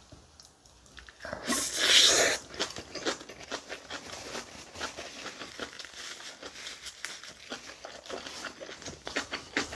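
Close-miked chewing of a mouthful of spicy kimchi bibimbap: wet, crunchy mouth sounds with dense small clicks and crackles. A louder rustling burst comes about a second and a half in.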